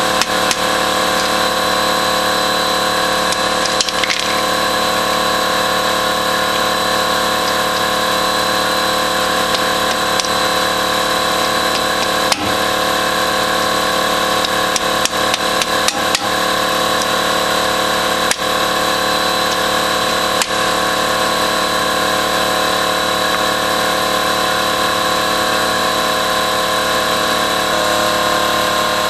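A steady machine drone made of several fixed tones runs without change, with a few sharp clicks and taps from hand tools at scattered moments.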